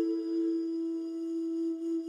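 Instrumental background music: one long, steady held note with a pure tone, which drops to a lower pitch right at the start.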